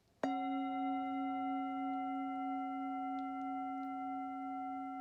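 A bell struck once, about a quarter second in, then ringing on with a strong low tone and several higher overtones, barely fading.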